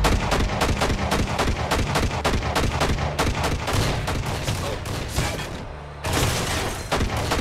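Rapid gunfire in a film shootout, about five or six shots a second, thinning out about five seconds in. A louder blast follows about six seconds in, and another shot comes near the end.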